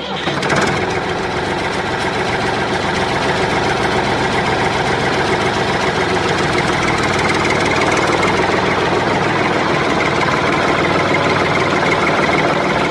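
An engine running steadily with a fast rattly rhythm, starting abruptly and cutting off abruptly at the end.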